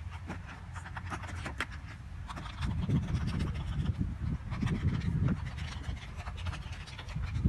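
Scratching and scraping of hands-on craft work on card, made up of many short clicks and scratchy strokes over a low rumble.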